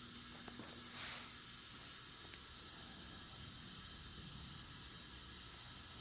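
Steady faint hiss of shop room tone, with a low hum that stops about half a second in and a brief soft rustle about a second in.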